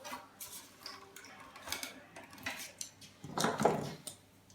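Light metallic clinks and knocks as an old monitor's metal parts and hand tools are handled during dismantling, with a louder clatter about three and a half seconds in.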